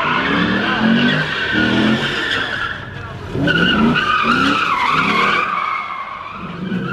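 Car spinning donuts: the tyres screech continuously as the engine revs up in short repeated pulses. The screech and revving ease off briefly about three seconds in, then come back.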